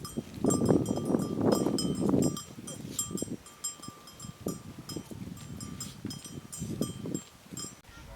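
Small bells on working livestock jingling in quick, irregular strokes, with louder low rustling and thumping over the first two seconds or so.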